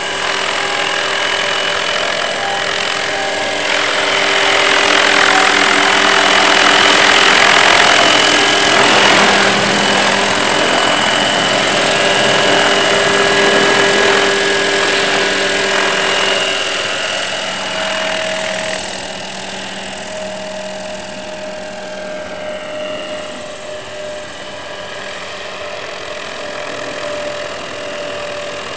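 Radio-controlled scale model UH-1 Huey helicopter flying, a steady mechanical whine mixed with rotor noise. It grows louder as the model passes close a few seconds in, then fades somewhat as it moves away after the middle.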